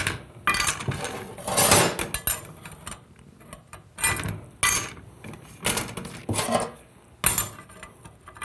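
Steel and friction clutch plates being dropped one by one into a TH400 direct clutch drum, clinking against each other and the steel drum, about one clink a second.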